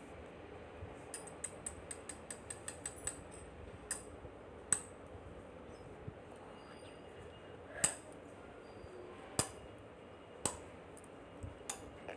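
Short sharp clicks and light clinks: a quick run of about a dozen a second or so in, then single louder ones every second or two, over a faint steady background.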